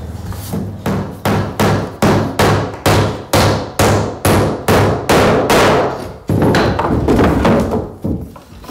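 A hammer knocking a wooden floorboard into place: a steady run of sharp strikes, about three a second, for some six seconds, then a rougher continuous noise for a couple of seconds that fades out.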